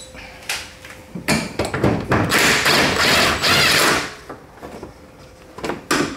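Cordless drill/driver running for about three seconds, its pitch wavering under load as it backs out a headlight mounting screw. A few sharp taps and clicks of the tool against the car's front end come just before and near the end.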